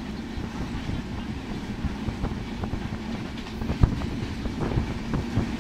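Passenger train running at speed, heard from aboard a carriage: a steady rumble and rattle from the wheels and coach, with irregular sharp knocks from the wheels on the rail joints. The loudest knock comes a little under four seconds in.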